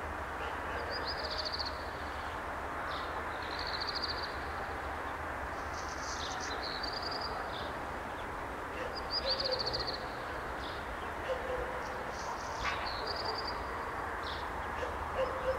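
A small songbird singing a short trilled phrase, repeated every two or three seconds, over steady outdoor ambient noise with a low rumble.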